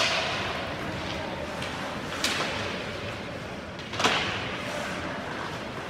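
Ice hockey play in an echoing rink: three sharp cracks of puck and sticks striking the boards and ice, each ringing on through the arena, over the hall's steady background noise.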